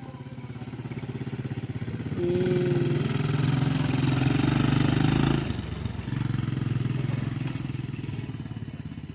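250cc ATV engine running, opened up about two seconds in and held higher for about three seconds, then eased back a little past the middle and running on steadily.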